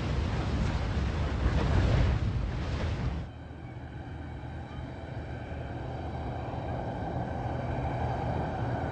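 Molten lava surging and spattering in a lava lake, a loud rumbling noise that cuts off abruptly about three seconds in. A quieter steady vehicle hum follows, slowly growing louder as 4x4 vehicles approach on the road.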